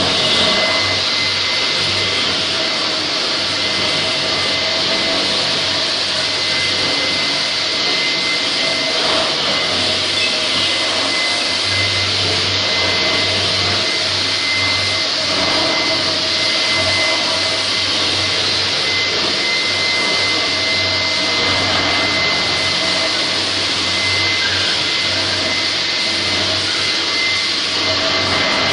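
Linax K-30ENV electric concrete floor grinder running steadily, its rotating head grinding the concrete floor, together with the rush of its dust-collector vacuum. A steady high whine runs through the noise.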